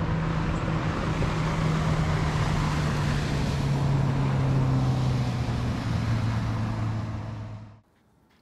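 A motor engine running steadily, its low pitch slowly falling throughout, until the sound cuts off abruptly near the end.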